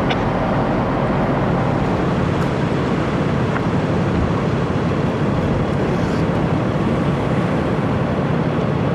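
Idling vehicle engines at the roadside: a steady low hum under a loud, even rushing noise.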